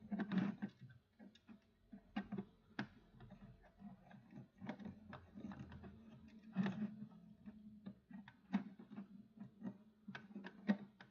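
Irregular small clicks and taps of a wire being fitted and screwed onto a terminal of a fire alarm pull station, over a faint steady hum.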